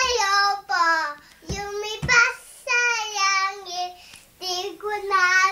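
A young boy singing a Tagalog song solo and unaccompanied, in short phrases of held notes with brief breaks between them.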